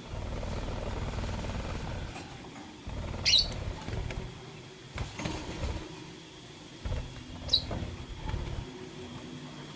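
Lovebird giving two short, high chirps that fall in pitch, about four seconds apart, over low rumbling and a few soft knocks.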